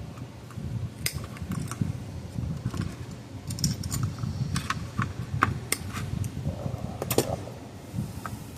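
Irregular light clicks, taps and plastic rattles of hands working on the inside of an electric fence charger, fastening and handling parts with zip ties. The clicks come singly and in small clusters, the sharpest about five and a half and seven seconds in.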